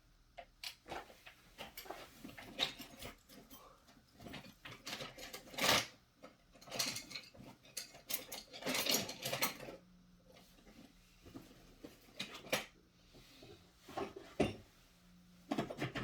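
Small metal hand tools and parts clinking, scraping and clattering irregularly as they are handled, with several louder clusters of clicks in the middle.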